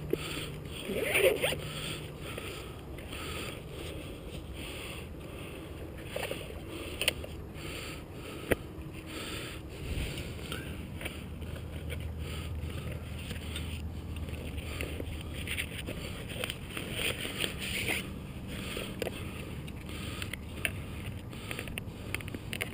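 Steady wind noise on the microphone, with a few sharp clicks, the sharpest about eight and a half seconds in.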